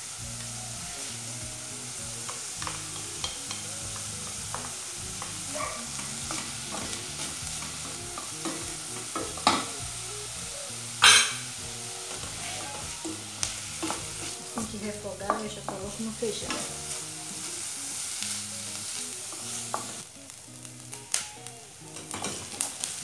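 Diced onions frying in olive oil in a stainless steel saucepan, sizzling steadily as a wooden spoon stirs them, with scattered clicks and two sharp knocks of the spoon against the pan about halfway through. The sizzle drops off shortly before the end.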